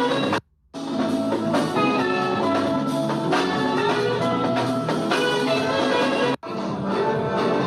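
Upbeat music with drums and brass, cut off briefly twice by edits: once about half a second in for a moment, and again about six and a half seconds in.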